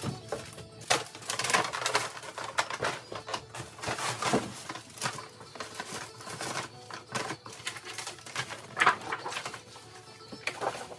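Papers, a paper shopping bag and plastic bags being handled and sorted on a table: irregular rustling and crackling with small knocks as items are picked up and set down.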